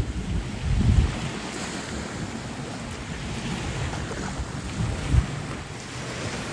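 Sea waves washing and lapping, with wind buffeting the microphone in low rumbling gusts about a second in and again about five seconds in.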